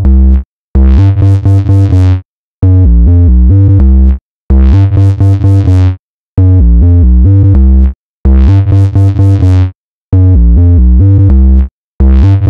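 Electronic dance music: loud synthesizer chords over heavy bass, stepping through notes in phrases about a second and a half long, each cut off by a brief dead silence.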